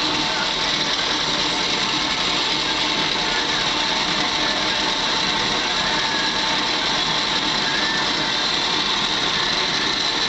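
Drill press converted to a milling machine, its mill cutter running and cutting a T-slot in a metal table under a slow hand feed: a steady machine whine with a high ringing tone.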